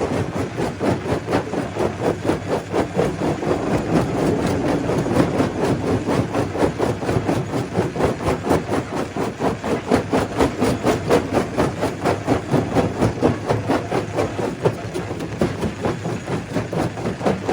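Stone crusher running and crushing rock, a loud, steady din with a fast, even rhythm of knocks.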